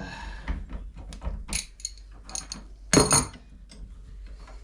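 Metal tools and hardware clicking and scraping while a bench vise's mounting bolts are worked loose, with one loud ringing metal clank about three seconds in.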